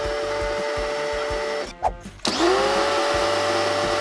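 Muc-Off electric pressure washer running, a steady motor-and-pump whine over the hiss of the water spray. It drops out just under two seconds in and spins back up with a rising whine.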